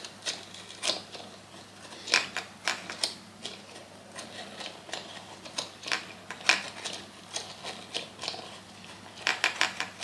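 Small hand-cranked wooden bird automaton in motion: its cherry-wood gears and cam click and knock irregularly as the crank is turned, with a quick run of clicks near the end.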